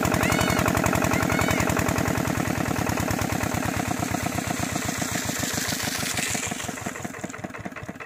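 Single-cylinder diesel engine of a Kirloskar pump set running with a fast, even chugging beat. Over the last couple of seconds the beats spread out and fade as the engine winds down.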